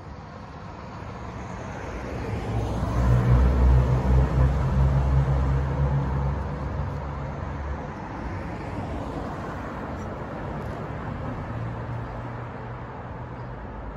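A motor vehicle passes on the road, its low engine rumble and tyre noise swelling to the loudest point about three to five seconds in and fading by about eight seconds. A steady, lower traffic hum follows.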